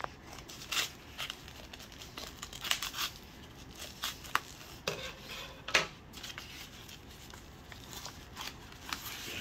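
Scissors snipping along the edge of a padded kraft-paper mailer, with irregular crinkling and crackling of the envelope as it is cut and pulled open.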